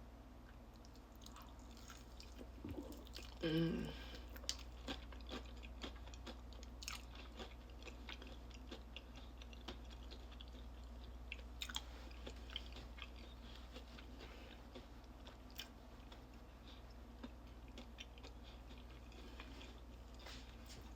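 A person chewing and biting into crispy fried chicken close to the microphone: soft wet chewing with scattered small crunches and clicks, and a short hum about three and a half seconds in.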